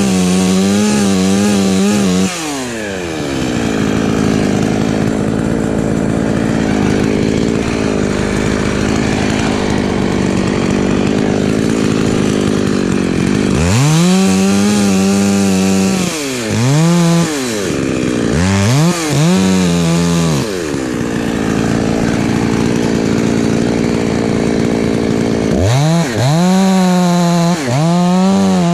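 Husqvarna 254 two-stroke chainsaw running at high revs. About two seconds in, its pitch falls to a lower, rougher note for about eleven seconds. It then revs up again, with two quick throttle dips and recoveries, and runs high once more near the end.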